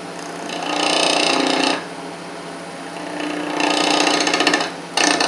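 A 3/8 bowl gouge cuts the end-grain stubs off a wooden sphere spinning on a lathe between cup chucks. There are two cutting passes of about a second and a half each, with a fast rattle, and a third begins near the end. The lathe motor hums in between.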